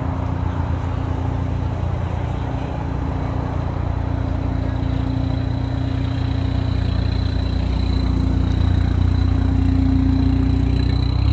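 Turbocharged car engine running with a high, steady turbo spool whistle over the engine note; the whistle slowly rises in pitch and gets louder, peaking near the end.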